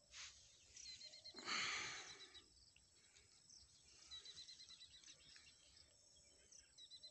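Quiet outdoor ambience with a small bird giving repeated runs of quick, high chirps, three or four times. About a second and a half in, a brief rustle of handling noise, the loudest sound.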